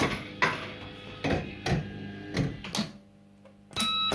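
Electromechanical fruit machine in play: a run of sharp mechanical clunks and clicks from its reels and buttons, with a short electronic beep at the start and another near the end.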